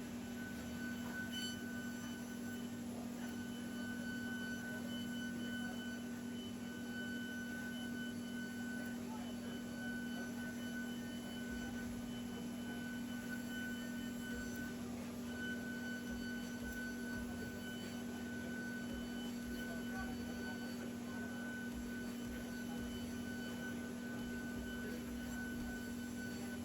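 CNC router setup running steadily: a constant hum with a thin high whine over it that drops out briefly twice.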